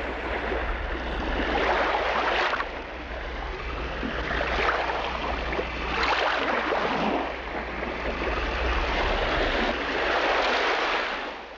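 Sea waves washing in, rising and falling in swells every two to three seconds over a steady low rumble, fading out near the end.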